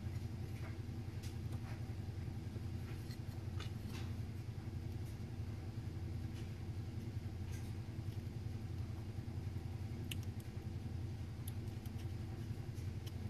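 Steady low hum, with faint scattered clicks and ticks of electrolytic capacitors and their wire leads being fitted into a small circuit board by hand.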